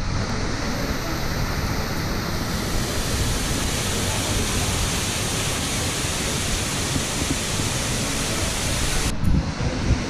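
Drung Waterfall, partly frozen but still flowing, with water rushing steadily down the rock face into the pool below. The rushing briefly dips in its higher part about nine seconds in.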